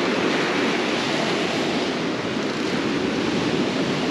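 Gulf surf breaking and washing up onto a sandy beach, a steady rushing noise.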